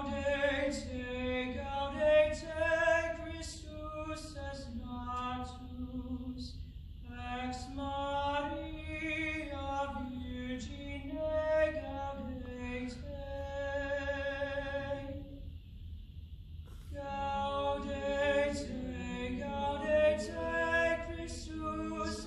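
High school boys' choir singing in phrases, with two short breaks between phrases about six and fifteen seconds in.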